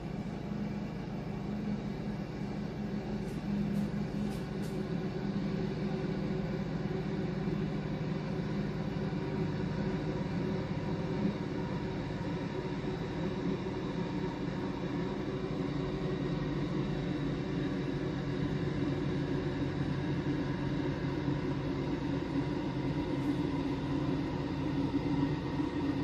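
Steam espresso machine running with a steady low hum and rumble, a few held tones in it, growing a little louder over the first few seconds.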